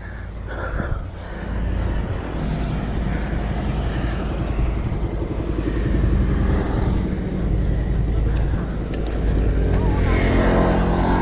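Wind buffeting the bike-mounted camera's microphone while cycling slowly: a steady low rumble that swells a little near the end.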